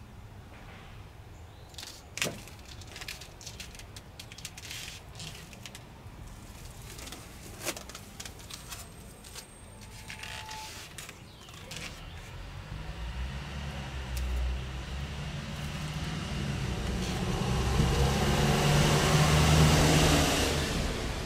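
A motor vehicle passing, its engine and tyre noise building over several seconds to a peak near the end, then starting to fade. Before it, scattered light clicks and taps.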